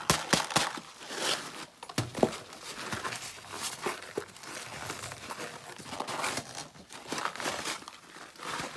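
Borax powder being worked and crushed by hand, an irregular crinkling and rustling with a few light knocks.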